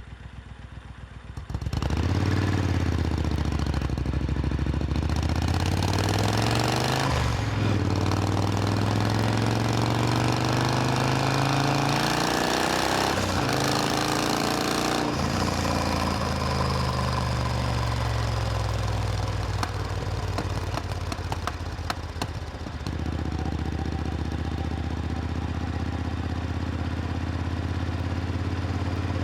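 Supercharged Triumph Thunderbird Storm's 1700 cc parallel-twin engine running, coming in suddenly about two seconds in, its revs rising and falling several times, then settling to a steady idle near the end.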